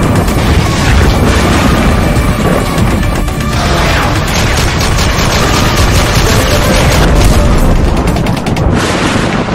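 Loud intro music layered with heavy booms and sound effects of gunfire; from about a third of the way in, a rapid run of shot-like cracks, until the sound cuts off at the end.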